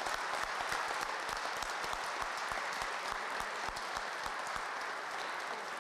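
Audience applauding, a steady mass of clapping hands.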